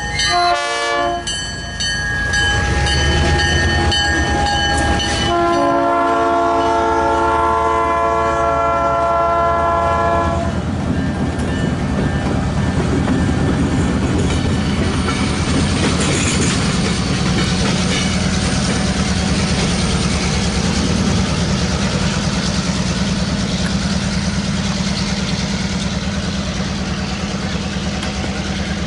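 Diesel locomotives' multi-chime air horn sounding as they pass, its pitch dropping as they go by. A long horn blast starts about five seconds in and stops about ten seconds in, and a steady rumble of the locomotive engines and rolling train follows.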